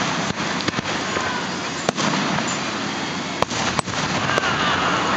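Aerial fireworks shells bursting with several sharp bangs over a steady wash of noise.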